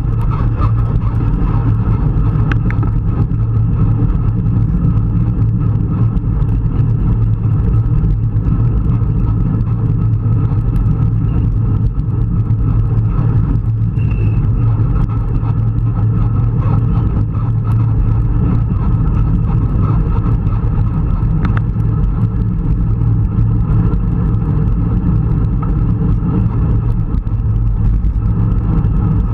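Steady low wind rumble over the microphone of a camera on a road bike ridden at race speed in a group, mixed with road-bike tyres running on tarmac.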